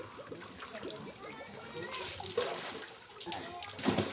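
Water trickling and splashing onto a concrete well surround as boys bathe with buckets of well water, with a louder splash near the end.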